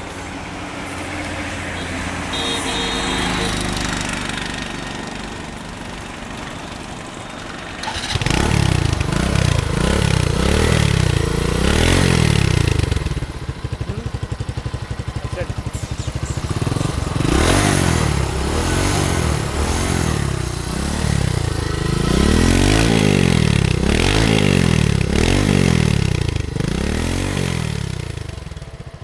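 Bajaj V15's single-cylinder engine starting about eight seconds in, then revved in repeated throttle blips, each rising and falling in pitch, with a short spell of steadier running midway.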